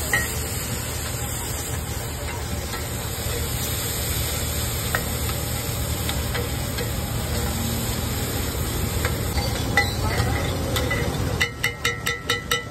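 Egg mixture sizzling on a large flat griddle as a metal spatula and a perforated metal masher scrape and press it, with occasional metal clicks. Near the end comes a quick run of sharp, ringing metal taps, about four a second.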